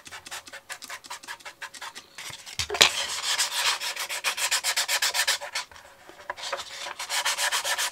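600-grit wet-and-dry sandpaper wet-sanding a filler-primed plastic model boat hull in rapid back-and-forth strokes. The strokes are light at first, get louder and denser about three seconds in, and pause briefly around six seconds.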